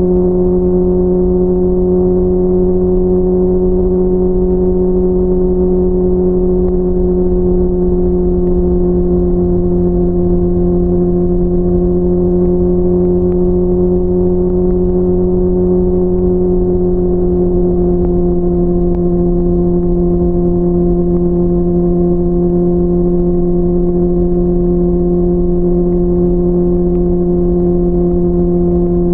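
Honda CBR600RR's inline-four engine running at a steady, fairly high pitch under constant throttle, with the note easing slightly lower a little past halfway.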